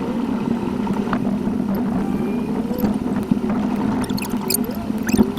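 Car dashcam audio played back at eight times speed: the engine and road noise turned into a steady high hum, with short squeaky pitch glides and scattered clicks over it, and a quick run of sharp clicks near the end.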